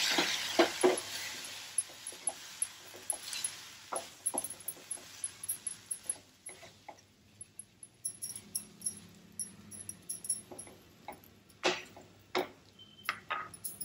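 Water sizzling on the hot pan, dying away over the first couple of seconds. Then a wooden spatula scrapes and knocks irregularly against a non-stick pan as the moist carrot and gram-flour mixture is stirred.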